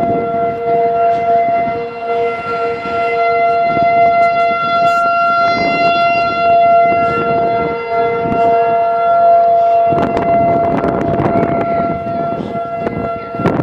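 Several outdoor tornado warning sirens, ACA P50 type, each holding a steady wail in the monthly test signal, at two different pitches. The lower-pitched siren cuts off about ten seconds in while the higher one keeps going, and a rustling noise comes up near the end.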